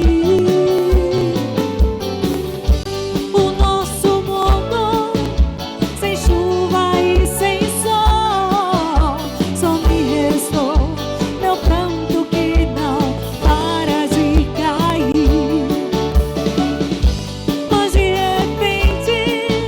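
Live band music: a drum kit keeping a steady beat under a wavering lead melody.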